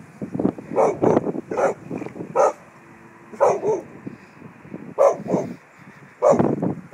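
A Samoyed barking repeatedly in short clusters of one or two barks, with brief pauses between them.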